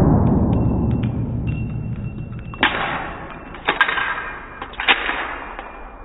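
Slowed-down pistol shot echoing in an indoor range, its report dying away over the first two seconds, then three sharp clicks about a second apart, each with a short ring.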